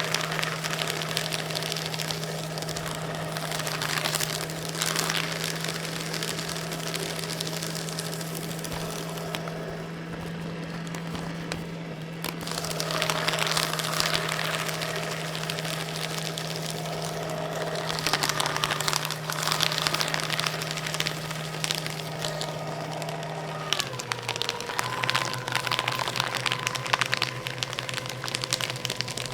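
Electric paper shredder running through paper. A steady motor hum sits under dense crackling and tearing of paper that swells and eases, and the hum drops in pitch twice in the second half.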